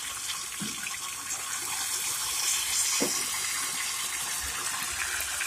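Ghevar batter deep-frying in hot ghee, a steady sizzling hiss from the bubbling fat.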